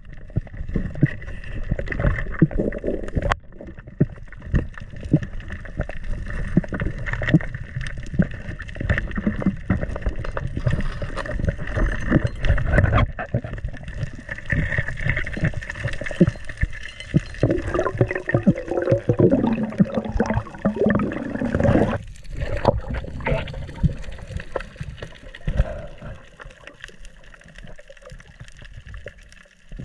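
Underwater sound heard through a diving camera's housing: water gurgling and rushing, with dense irregular crackling clicks. A wavering low tone rises and falls for a few seconds past the middle.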